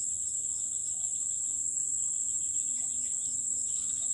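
Continuous high-pitched insect chorus, with a fainter pulsing insect call repeating a few times a second beneath it.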